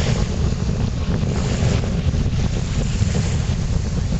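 Strong, gusty wind buffeting the microphone, a loud steady rumble, over the wash of small waves breaking on the shore.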